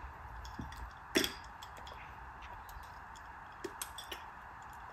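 Scattered light clicks and taps from handling a phone and a glass tumbler with a metal straw, the sharpest about a second in and a few more close together near the end, over a faint steady hiss.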